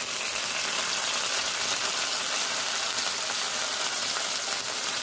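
Canned tuna, onion and garlic sautéing in oil in an aluminium wok: a steady frying sizzle.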